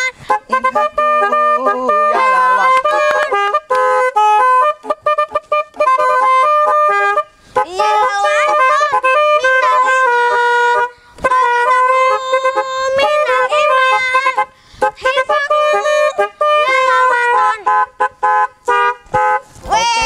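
Snail-type telolet horns on a model truck, driven by a DAV musical air horn module, honking out a song melody in steady, stepped notes with a few brief breaks.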